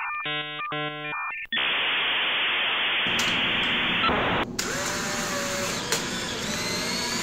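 Edited-in electronic sound effects: a quick run of stepped beeping tones, then a steady burst of static hiss starting about a second and a half in. After that comes a rougher hiss with a single sharp click near the end.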